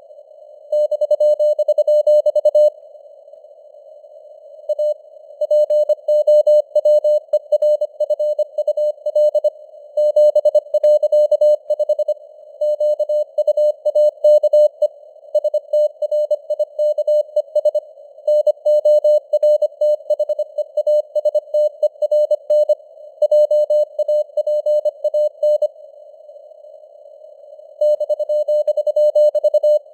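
Morse code at 25 words per minute: a tone of about 600 Hz keyed on and off in quick dots and dashes over a narrow band of hiss like a radio receiver's noise, its signal strength varying as in simulated fading (QSB). The keying pauses for about two seconds near the start and again near the end.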